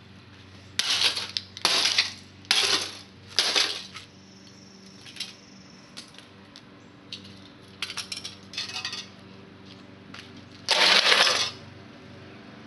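Electronics being smashed apart with a hammer: four metallic clattering crashes about a second apart in the first four seconds, then light clinks of loose metal pieces being handled, and a longer metallic clatter near the end as parts land on the concrete.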